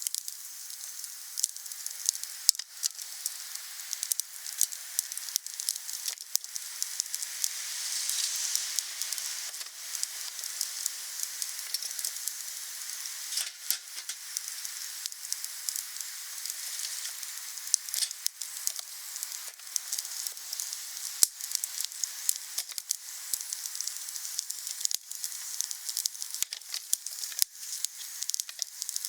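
Wood fire burning: a steady hiss with many sharp crackles and pops, swelling a little louder about eight seconds in.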